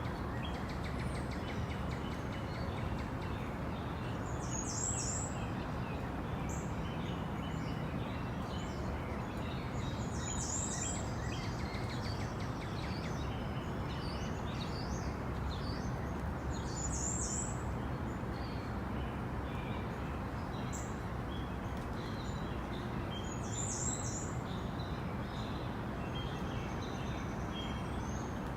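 Tropical rainforest ambience: a steady hiss under many birds chirping. One high, rapid call repeats about every six seconds.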